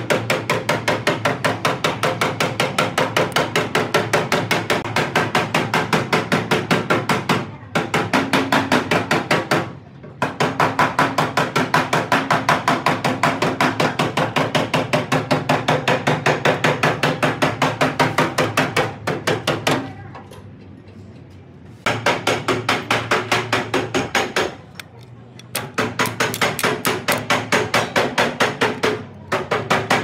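A hammer striking rapidly and evenly, about five blows a second, in long runs broken by a few short pauses.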